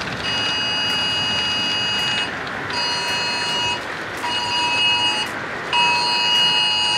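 Emergency alert tone sounding a tornado warning: a shrill, several-pitched beep in a repeating cadence, one long tone, two short tones, then another long tone starting near the end, each with a brief gap. Under it, the steady hiss of heavy rain and wind.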